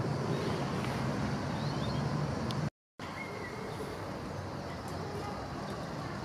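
Park ambience: a steady, distant traffic rumble with a few faint bird chirps. The sound cuts out completely for a moment a little under three seconds in, then resumes slightly quieter.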